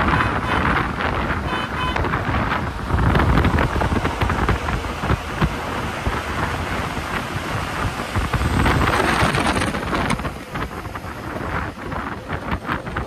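Inside a moving MSRTC non-AC sleeper bus: a heavy rumble of engine and road with wind noise, and many short clicks and knocks running through it.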